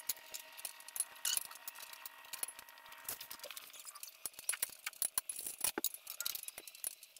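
Hand tools and small metal parts clinking and clicking irregularly as work goes on under the engine, in quick short taps with no steady rhythm.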